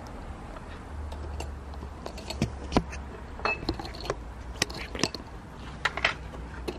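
Small metal hardware, steel corner brackets and fasteners, clinking and clicking irregularly as it is handled and sorted, over a low steady rumble.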